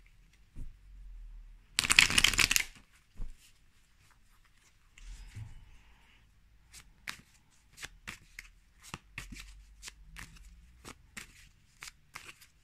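Tarot cards being shuffled by hand: a loud rush of cards about two seconds in, then from about halfway a run of short card taps, a few a second.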